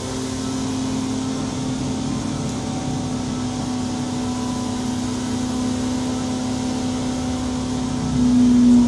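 Suzuki GSR 600 inline-four running on a dyno at a steady, held engine speed through a de-baffled Devil exhaust with the catalyst removed, the note getting louder near the end.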